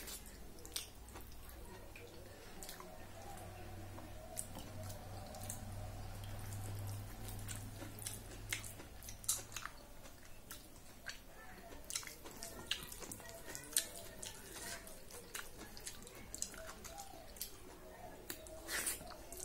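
Close-up wet chewing and mouth clicks of a person eating soft khichdi with her fingers, with soft squelches of the hand mixing the rice and lentils. The clicks come irregularly throughout, a few louder ones near the end.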